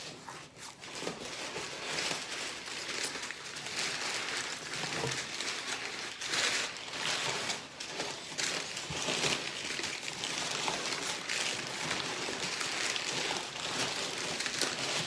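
Brown kraft packing paper rustling and crinkling as it is pulled out of a cardboard box, a steady run of crackles.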